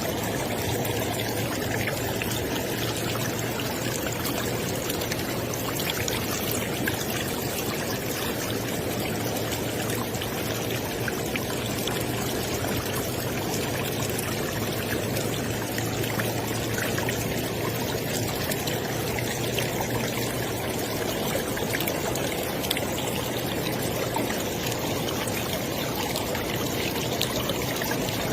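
River water flowing and splashing, a steady rushing noise with small splashes and trickles throughout.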